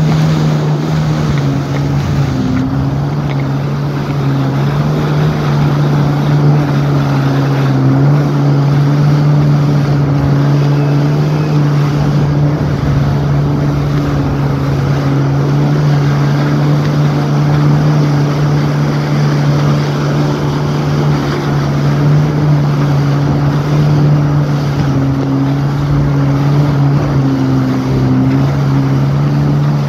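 Jet ski engine running steadily at speed, its tone holding level with only slight dips near the start and towards the end. Water spray rushes off the hull, with wind on the microphone.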